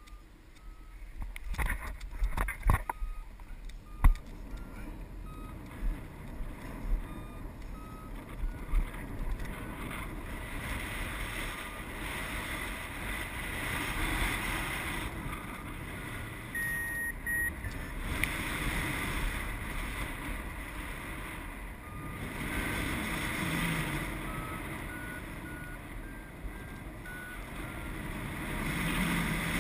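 Paragliding variometer beeping in short tones, which sit higher later on as the glider finds rising air, over wind rushing past the microphone that grows louder once airborne. A few sharp knocks come in the first seconds.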